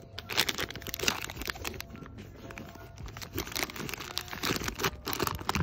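Plastic crinkling and rustling in irregular bursts as plastic bags and packaged items are handled.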